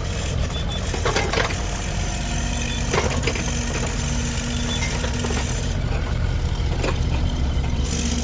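Bobcat E35 mini excavator's three-cylinder Kubota diesel engine running steadily at idle, with a few light clicks and rattles over the engine note.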